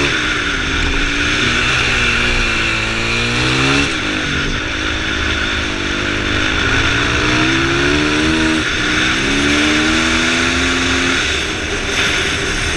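Racing motorcycle engine pulling hard uphill. Its pitch climbs, breaks off and picks up again twice as it changes gear, then drops away near the end. Wind rushes over the microphone throughout.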